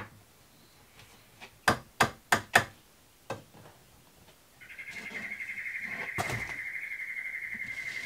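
Light wooden knocks as framing timber is set down and shifted on the floor, a quick run of four about two seconds in. From about halfway, a steady, high, fast-pulsing animal trill carries on to the end, with one more knock during it.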